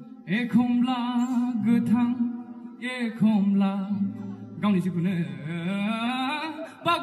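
A man singing live into a microphone, phrase after phrase with wavering held notes, to his own acoustic guitar accompaniment.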